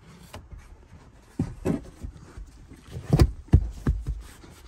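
Carpeted floor cover panel being pushed and knocked into place over the auxiliary battery compartment: a handful of dull thumps and knocks, the loudest a little past three seconds in, with handling rustle between.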